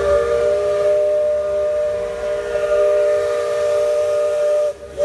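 A paddle-wheel riverboat's steam whistle blowing one long chord of several tones. It breaks off near the end, and a short second blast follows.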